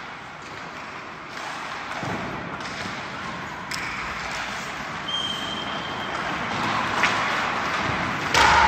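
Skates scraping and carving on rink ice during a hockey drill, with a few sharp clacks of sticks and pucks. The loudest clack comes near the end.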